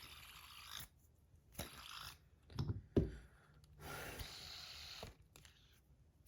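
Small metal fidget spinner parts being handled and fitted back together: several short rubbing, scraping bursts and one sharp click about three seconds in.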